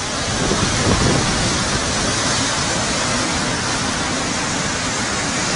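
Muddy floodwater rushing across a road in a flash flood: a loud, steady, even rush of water.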